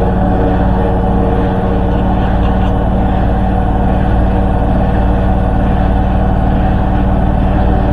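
Hoover H-Wash 300 Plus washing machine spinning at high speed: a loud, steady drone with several held tones over a deep hum.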